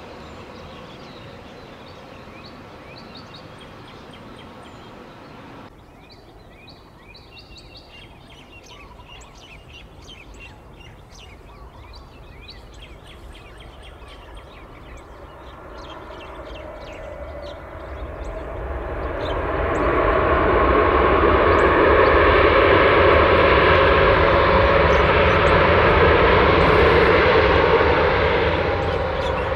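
Jet engines of a Southwest Boeing 737 on its landing rollout, rising from a faint hum to a loud, steady roar about two-thirds of the way in and easing slightly near the end. Before the roar builds, birds chirp over a distant engine hum.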